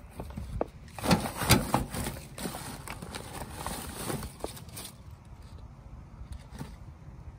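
Guavas being handled and put into a plastic basket, with rustling of leaves and plastic sacking: a burst of knocks and rustling about a second in, then scattered lighter knocks and clicks.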